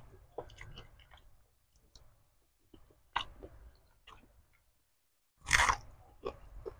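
Close-miked chewing and mouth sounds from eating goat-head meat wrapped in lettuce, with scattered small crunches and clicks. One louder crunch about five and a half seconds in.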